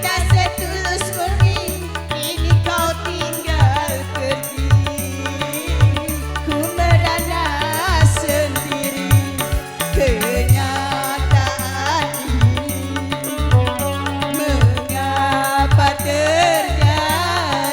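Dangdut koplo band playing: a steady hand-drum beat with a melodic line above it that wavers in pitch.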